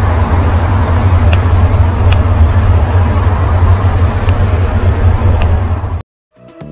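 Wind buffeting the microphone of a camera on a moving bicycle, a loud steady low rumble, with road traffic noise and a few light ticks. It cuts off suddenly about six seconds in, and music begins near the end.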